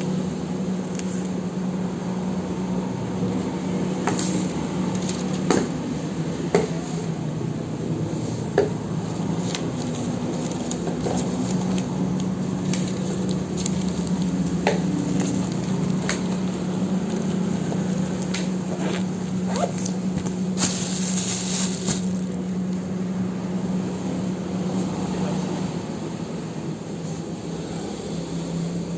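Paint-mixing machine running with a steady hum, with scattered light clicks and knocks and a brief hiss about 21 seconds in.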